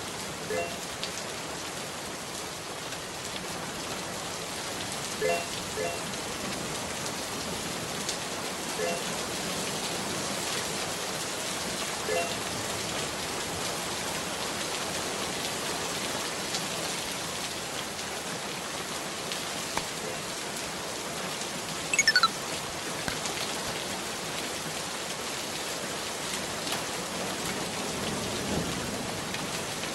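Steady hiss of rain, with a few short high chirps in the first half and, about two-thirds of the way in, a sharp falling squeak with clicks.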